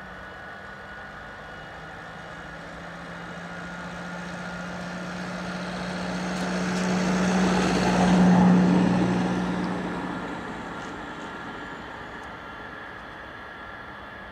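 Avro Vulcan's Rolls-Royce Olympus turbojets running during a ground engine test: a steady hum with a thin whine above it. A louder rushing sound swells up, peaks about eight seconds in and fades away again.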